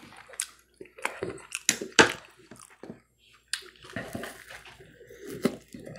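Close-miked wet chewing and lip-smacking of a person eating, with sharp clicks; a short pause about two and a half seconds in, then more chewing as he bites into a soft dinner roll.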